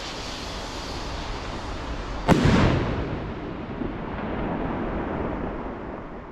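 Medium F3 hawk-style firework rocket: its climbing hiss trails off, then its burst goes off with one loud bang a little over two seconds in, echoing and dying away slowly.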